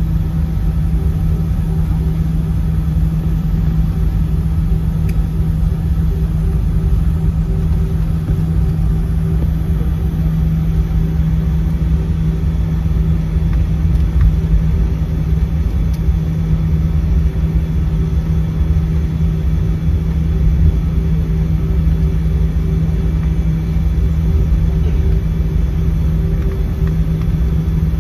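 Steady cabin noise of a jet airliner taxiing: the engines' even drone over a low rumble.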